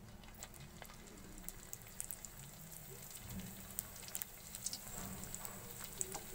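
Lumpia spring rolls sizzling in hot deep-frying oil as they are lowered in, a steady hiss with sharp crackling pops that grow busier after the first second.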